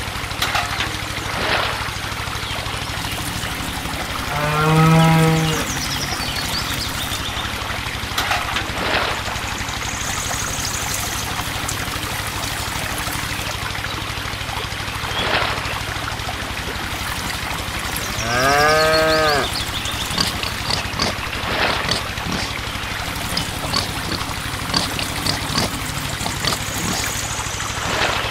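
A cow mooing twice, each moo about a second long, the second rising and then falling in pitch. Underneath, water pours and splashes, with a steady low hum.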